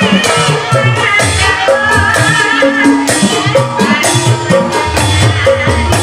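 Gamelan music: struck bronze kettle gongs and metallophones with drum and gong strokes in a steady beat, and a wavering high melody line over the top.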